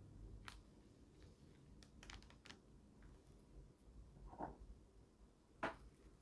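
A few faint, light clicks and taps of small plastic pieces being handled, the sharpest near the end, over near silence.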